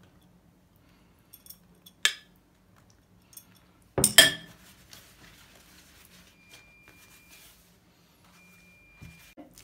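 A metal spoon clinking against a glass bowl: a sharp clink about two seconds in and a louder clatter about four seconds in. Soft rustling of yufka pastry sheets follows.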